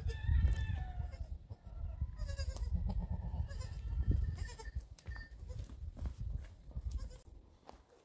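Goats bleating, a newborn kid and its doe: one call right at the start and more about two to three seconds in, over a steady low rumble that dies away near the end.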